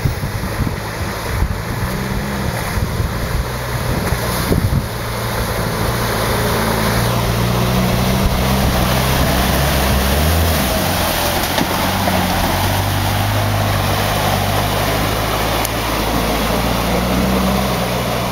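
A 4x4 pickup truck's engine working under load, its pitch rising and falling as the driver revs through deep mud, with the tyres churning and splashing through mud and puddles. It is loudest about ten seconds in as the truck passes close, then eases as it pulls away.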